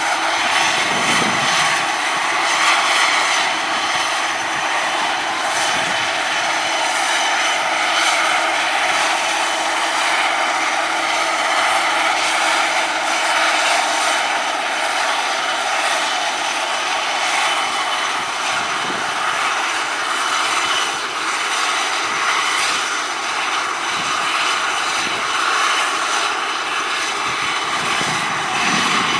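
The two Pratt & Whitney Canada PW127-series turboprop engines of an ATR 72-600 running steadily at low power with both propellers turning: a continuous turbine whine over propeller hum.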